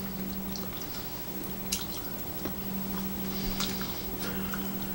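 Quiet wet chewing of soft food, with a few faint clicks of cutlery on plates, over a steady low hum.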